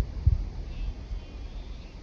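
Wind buffeting the microphone in gusts, a low rumbling that is strongest in the first half-second.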